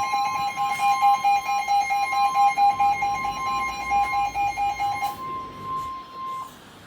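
Emergency Alert System two-tone attention signal: two steady tones sounding together, the 853 Hz and 960 Hz pair of an EAS alert. The lower tone drops out about five seconds in and the higher one cuts off about a second later, announcing the severe thunderstorm warning that follows.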